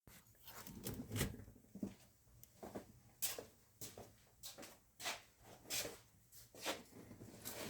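A string of short, sharp clicks and scrapes, roughly two a second and unevenly spaced, like tools or metal parts being handled.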